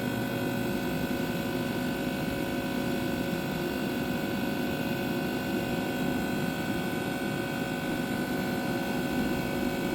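Vertical Pit Boss pellet smoker running during start-up: a steady hum from its fan and auger motor, with a few constant tones over an even whir. The fire in the firepot has not yet caught fully to a roar.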